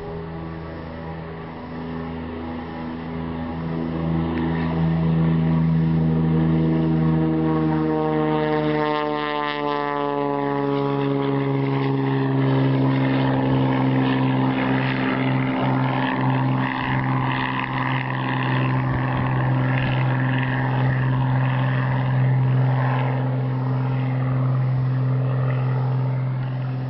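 Cessna 207's six-cylinder Continental 520 engine and propeller at full takeoff power, a steady drone. It gets louder about four seconds in, and its pitch falls smoothly between about eight and twelve seconds in as the plane climbs past, then holds steady at the lower pitch.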